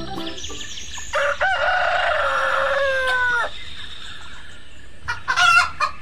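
A rooster crowing once, one long call that bends down in pitch at its end, followed near the end by a few short clucking calls.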